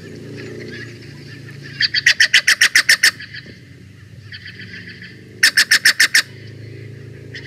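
Steller's jay giving two fast, loud series of harsh calls, about ten notes in the first and seven in the second, with a softer series between them. A faint low hum runs underneath.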